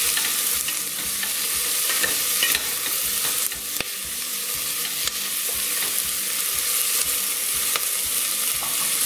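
Chopped onion and yellow pepper sizzling in olive oil in a stainless steel pan, with a wooden spoon stirring through them and a few light clicks against the pan.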